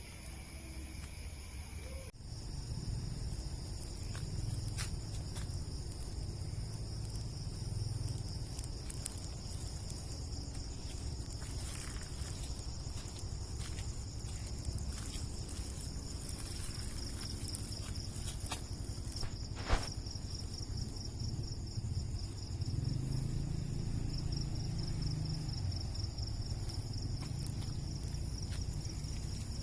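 Night insects such as crickets, trilling steadily in a high, pulsing chirr. Under it is a low rumble, and one sharp click comes about twenty seconds in.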